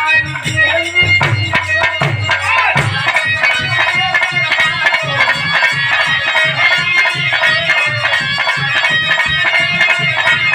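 Instrumental music with a sustained, reedy organ-like melody over a steady drum beat of about two to three beats a second.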